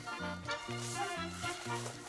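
Background music with a steady, bouncing bass line of about two notes a second.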